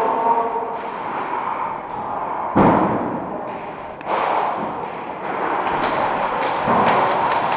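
Thumps and knocks in a large plywood airsoft arena, with one loud thump about two and a half seconds in and more knocks later, over a steady background din from the hall.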